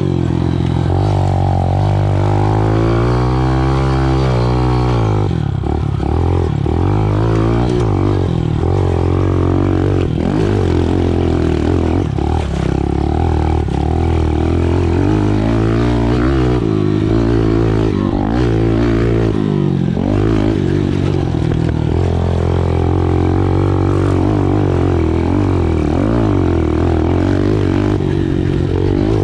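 Small 110cc single-cylinder four-stroke engine running hard under riding, its pitch rising and falling with the throttle, with one long rev-up and drop-off a few seconds in.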